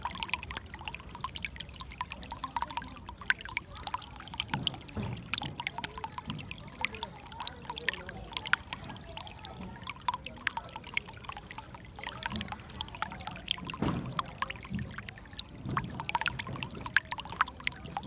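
Shallow running water trickling and babbling, a steady wash dotted with many small splashes and bubbling clicks.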